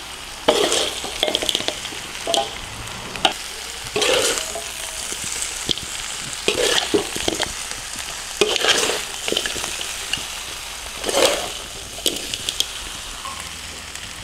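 Porcupine meat sizzling as it is stir-fried in a hot pan, with a spatula scraping and clattering against the pan at irregular strokes every second or two.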